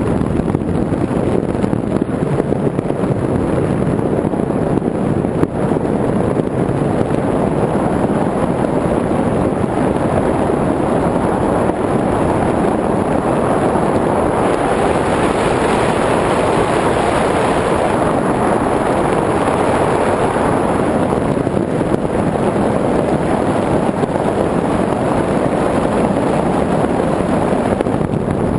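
Steady wind noise buffeting the microphone of an RC airplane's onboard FPV camera in flight, with no distinct motor tone.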